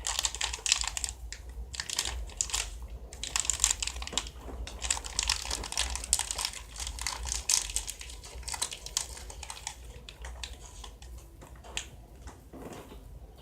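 Crinkling and rustling of plastic snack packaging being handled and opened: a dense run of crackles, busiest for the first several seconds and thinning out toward the end.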